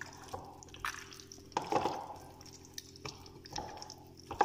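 Hands squishing and kneading raw chicken pieces in a wet marinade in a glass bowl: irregular squelches and slaps, loudest about a second and a half in and again near the end.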